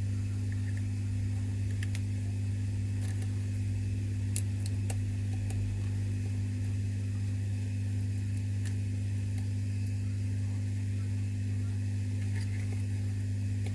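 Steady low electrical hum, with a few faint scattered clicks as a tool picks small bits of broken screen glass off the smartphone's frame.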